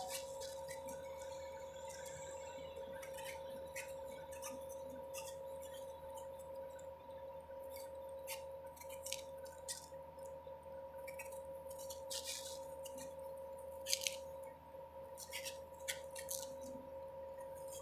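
Kitchen knife shaving the peel off a firm, half-ripe Indian mango: irregular soft scrapes and small clicks of the blade, one sharper click about fourteen seconds in. A faint steady high hum runs under it.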